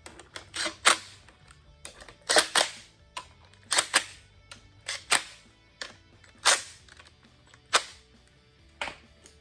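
A series of sharp knocks from hand-tool work on an LS1 engine's front cover, roughly one a second and some in quick pairs, over background music.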